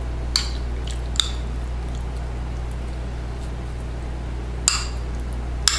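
A spoon scooping chunky tomato, onion and pepper sauce from a glass bowl and dropping it onto breaded chicken cutlets: four short wet squelches and light clicks, spread out over a steady low electrical hum.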